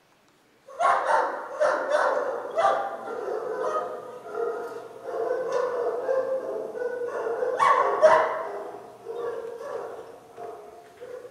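Dogs barking and yelping in a long, uneven run that starts abruptly about a second in, loudest at the start and again about eight seconds in.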